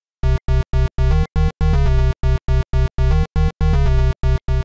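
Chiptune-style synthesizer music: a quick run of short, clipped notes, about three or four a second, separated by brief silences and stepping up and down in pitch.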